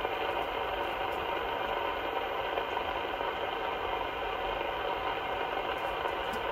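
President AR144 CB transceiver on channel 28 (27.285 MHz) receiving only band noise: a steady hiss of static through its speaker, with no station coming through.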